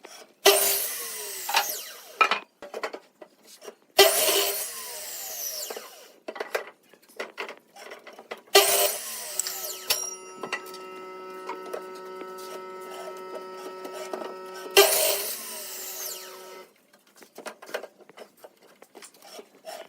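Woodworking tool cutting pallet wood in four loud bursts of a second or two each, with a steady machine hum in the middle of the stretch and scattered knocks of wood between the cuts.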